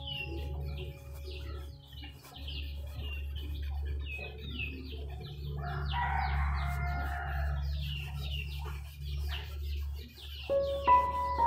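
Small birds chirping rapidly and repeatedly over a steady low hum, with a rougher call about six seconds in and a few held musical tones near the end.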